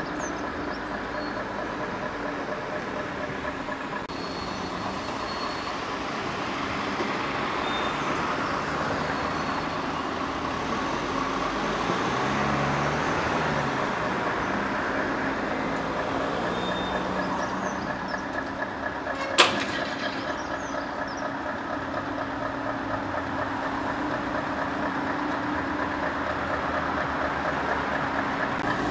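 Heavy truck's diesel engine running steadily at low speed as a low-loader rig moves off. There is one sharp click about two-thirds of the way through.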